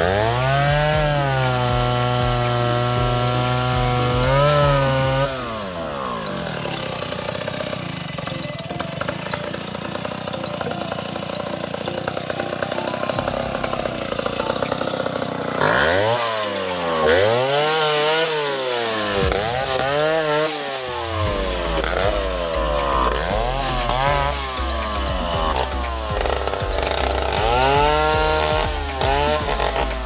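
Chainsaw running, cutting into a durian tree's trunk. It revs up at the start and holds high for about four seconds, then drops. In the second half it is revved up and down over and over, about once a second.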